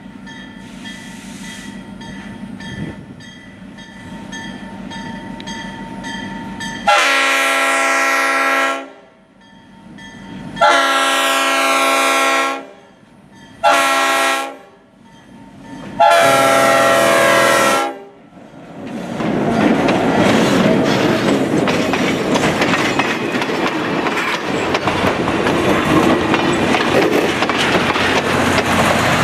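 EMD GP-series diesel locomotive approaching with its engine running, then sounding its air horn in the grade-crossing pattern: long, long, short, long. The locomotive and its passenger cars then pass close by, the wheels rumbling and clacking on the rails.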